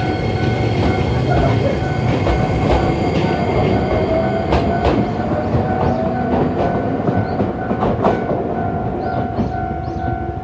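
Iyotetsu 3000 series train running over a steel truss railway bridge, its wheels clacking on the rail joints with a few sharp knocks, under a steady low rumble. A railway level crossing alarm sounds steadily alongside.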